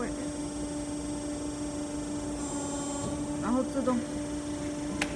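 Steady hum from a 3-ton hydraulic press, one unchanging low tone, with a single sharp click near the end.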